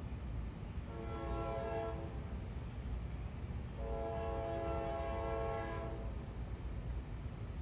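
Nathan K5LA five-chime horn on CSX GE AC44CW locomotive 529 sounding two blasts: a shorter one about a second in, then a longer one of about two seconds.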